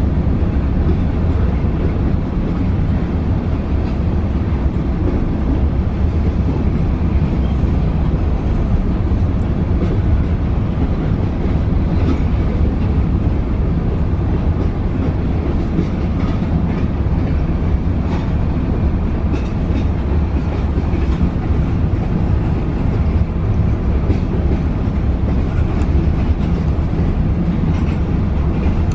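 Freight train of tank cars rolling steadily past, heard from inside a car: a continuous low rumble of steel wheels on rail, with scattered clicks of wheels passing over rail joints.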